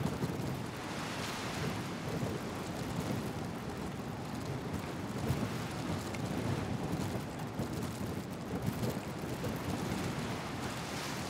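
Wind on the microphone and the rush of sea water along a moving ship: a steady, noisy rumble that swells and eases a little.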